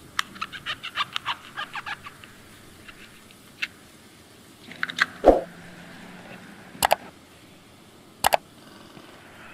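Knife prying coconut meat away from the shell: a quick run of cracking clicks at first, then scattered clicks, a heavier knock about five seconds in, and two sharp double clicks later on the wooden table.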